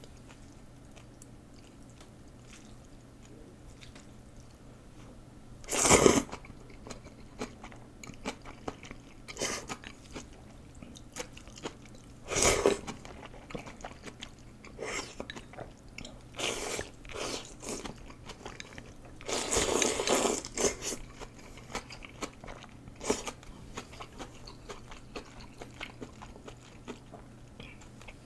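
A person eating rice noodles, close-miked. The noodles are slurped in three loud bursts: about six seconds in, again near the middle, and a longer one about two-thirds through. Softer chewing and small mouth clicks fill the gaps.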